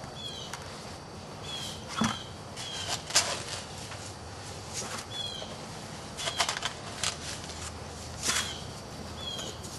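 Pieces of chert and flint being handled and packed into sand in a roaster pan for heat treating: a string of short scrapes and clicks, the loudest about two and three seconds in. A small bird chirps again and again in short falling notes.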